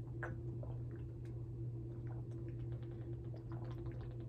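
Someone drinking in long gulps from a plastic water bottle: faint swallowing clicks and small ticks scattered through, over a steady low hum.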